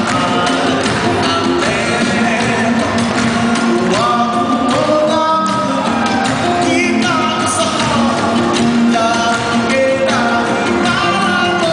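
A male singer singing a Malay pop song live into a microphone over amplified backing music with a steady beat, played through PA speakers.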